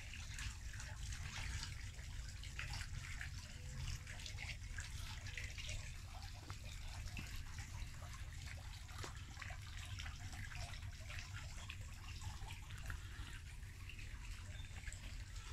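Garden fountain's water splashing and trickling into its basin, a steady patter over a low rumble.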